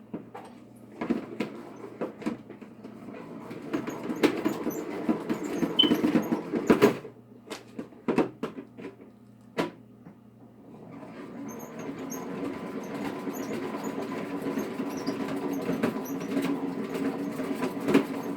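Salad spinner spinning washed lettuce, with a rattling whirr and clicks. It spins up for a few seconds, stops briefly with a few clicks, then runs again as a steady whirr from about eleven seconds in.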